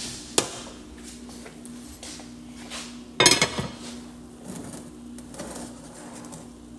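Cooking utensils knocking and clattering against cookware: a sharp click about half a second in, and a louder clatter of several knocks about three seconds in, with lighter handling knocks after. A steady low hum runs beneath.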